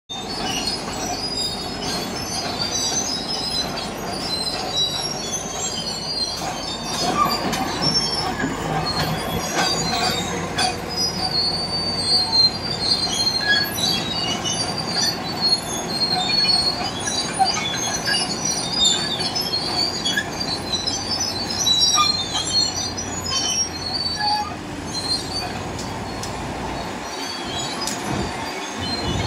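BEML D155A crawler dozer on the move, its Cummins KT1150 six-cylinder diesel running under the high, scattered squealing and knocking of the steel tracks.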